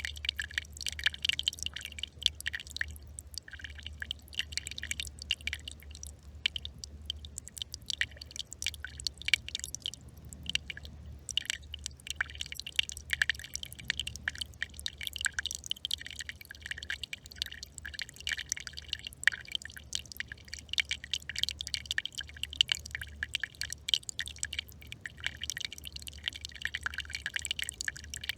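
Small brook trickling and burbling: a continuous run of quick little splashes and drips, over a steady low hum.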